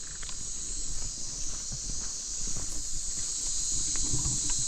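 Steady high-pitched chorus of insects, with irregular soft footsteps on a forest trail underneath.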